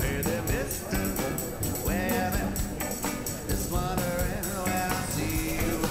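Band music with a steady drum beat, electric guitar and a singing voice.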